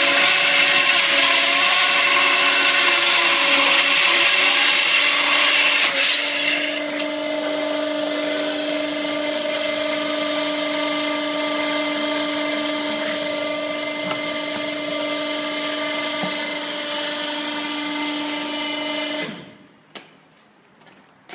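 Hydraulic chainsaw cutting concrete: a loud, grinding saw noise for about six seconds, then a quieter steady hum. The saw stops about nineteen seconds in, followed by a few faint clicks.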